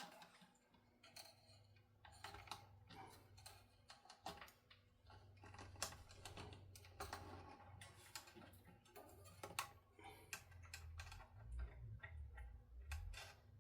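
Faint, irregular light clicks and taps of hands handling small guitar parts, with a low rumble coming in near the end.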